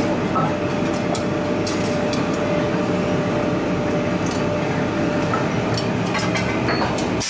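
Steady industrial machinery noise with a thin steady hum through it, and scattered light metal clinks from tongs and tools on a red-hot forging.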